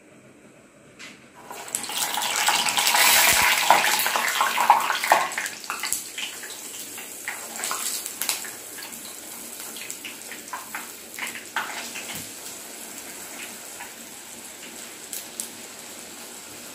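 Urad dal vada batter dropped into hot oil about a second and a half in and deep-frying: loud sizzling with crackles for the next few seconds, then settling to a steadier sizzle as the vadas fry.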